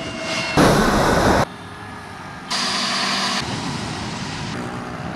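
Jet engine noise from an Airbus A320neo's turbofans, heard in abrupt edited cuts. A loud blast starts about half a second in and stops dead after about a second. A second burst with a steady high whine comes near the middle, and lower engine noise runs under and after it.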